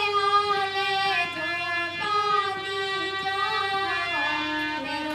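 A woman singing a Hindi devotional bhajan, accompanying herself with held chords on a keyboard instrument; the melody steps down in pitch about four seconds in.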